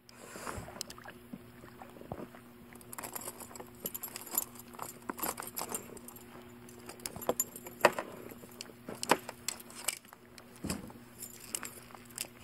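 Irregular clicks and light metallic rattling from a landing net and terminal tackle being handled while a largemouth bass is worked on in the net, with a few sharper clicks about eight and nine seconds in.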